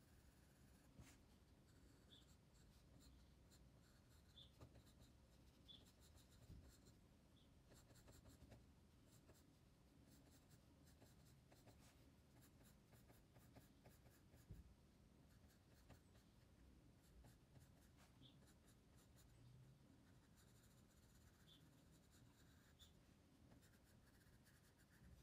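Faint scratching of a graphite pencil on paper, in many quick repeated strokes as it shades and hatches.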